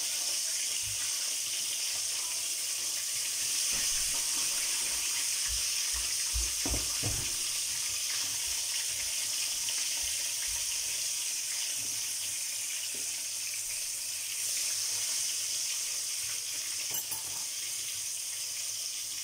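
Oil sizzling steadily under milkfish pan-frying, with a few soft knocks of a fork against the pan about six to seven seconds in.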